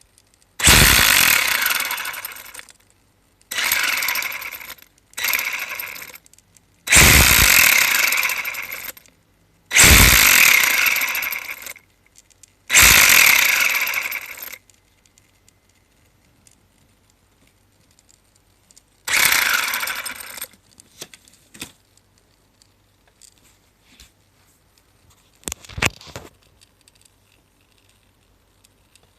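Tamiya TT-02B radio-controlled car's electric motor and drivetrain run in short throttle bursts, seven times, each a loud whirring rattle that fades as it coasts down, with the abnormal drivetrain noise this car developed after a crash. A few light clicks follow.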